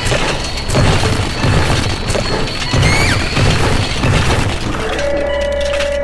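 Rocks and rubble crashing and smashing as an excavator bucket digs into a rubble pile, in two clusters of heavy thuds, about a second in and again around three to four seconds in, over background music.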